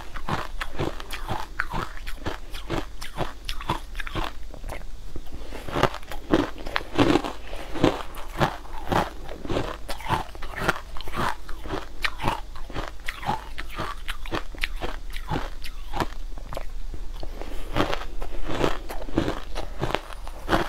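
Close-up crunching of pink-coloured crushed ice being bitten and chewed, a rapid run of sharp crunches several a second.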